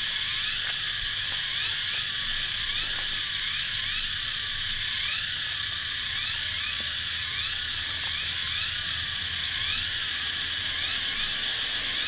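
Loud, steady chorus of cicadas, a shrill high drone with a whine that swells and falls about twice a second. A couple of faint clicks sound through it.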